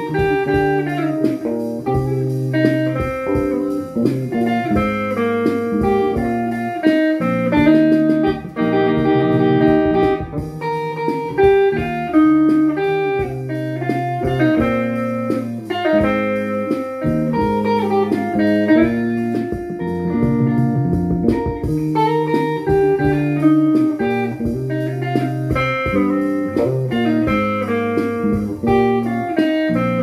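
Guitar music playing without words: an electric guitar carrying a melody of held, sliding notes over accompanying guitar.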